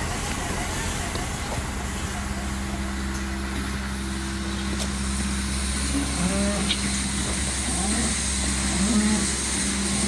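Tractor engine running steadily as a low drone, with a steady tone joining about two seconds in. From about six seconds, a few short pitched calls sound over it.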